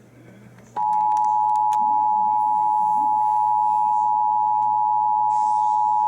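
Emergency Alert System attention signal: after a short lull with a few faint clicks, a steady two-note alert tone starts about a second in and holds unchanged, sounding the start of a broadcast severe weather alert.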